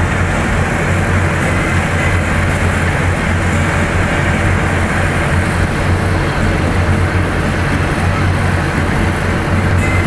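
Steady engine and road noise of a column of military vehicles driving past in a parade.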